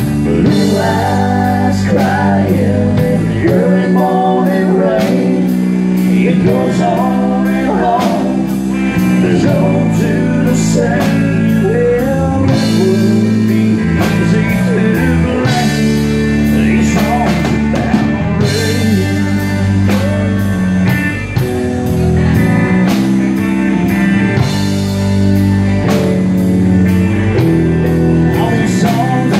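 Live country-rock band playing with a steady drum beat, electric bass, keyboard and electric guitar, with a singer.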